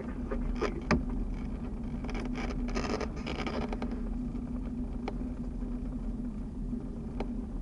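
Cessna 172SP's four-cylinder Lycoming IO-360 engine running at low taxi power, a steady drone heard inside the cabin. A sharp click about a second in and a few fainter clicks later.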